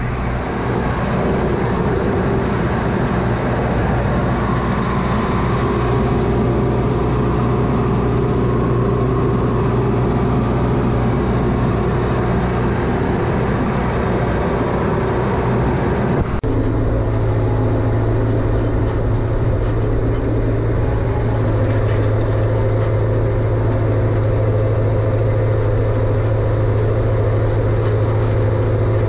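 New Holland tractor engine running steadily, heard from on board the tractor. About halfway through, the sound changes abruptly to a stronger, steadier low hum as the tractor pulls a hay rake.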